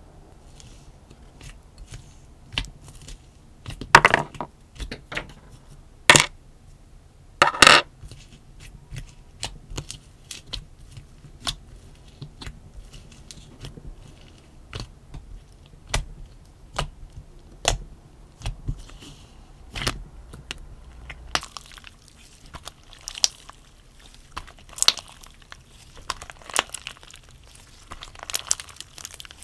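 Slime being handled by hand: irregular sticky clicks, pops and crinkly crackles, a few louder snaps early on and denser crackling in the last third.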